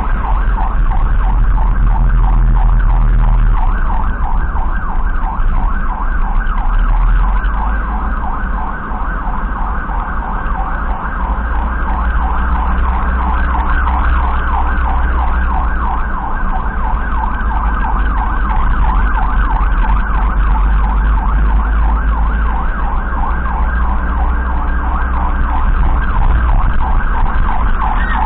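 Electronic emergency siren sounding in a fast, even warble, over the low rumble of the vehicle's engine and road noise.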